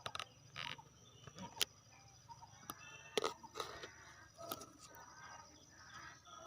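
Quiet rural outdoor ambience: faint bird chirps over a steady high insect drone, broken by scattered sharp clicks and knocks.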